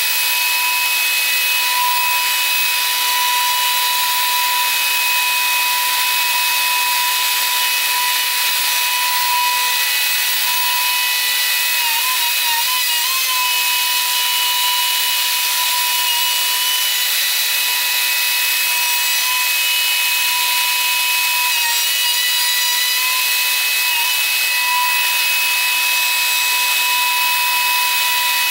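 Plunge router on a router sled running steadily while its bit mills across the face of a wide wooden slab to flatten it: a constant high whine over a hiss, wavering briefly in pitch about twelve seconds in and again a little past twenty seconds.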